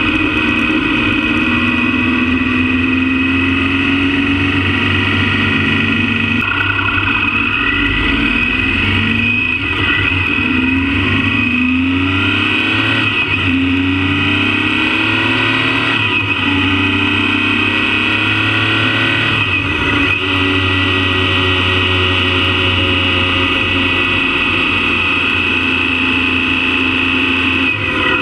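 Motorcycle engine heard close up while riding, running steadily and rising in pitch several times in the middle as the bike accelerates through the gears.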